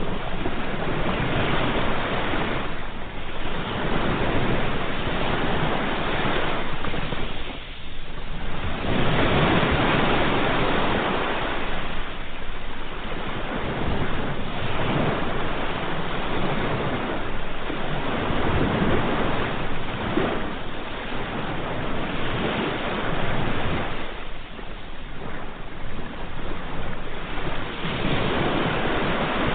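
Ocean waves breaking and washing on a shore, a continuous rushing surf that swells and eases every few seconds.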